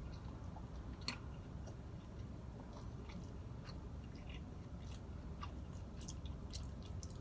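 Close-miked mouth sounds of a person chewing a breakfast sandwich: faint, scattered soft clicks and smacks, with one slightly sharper click about a second in.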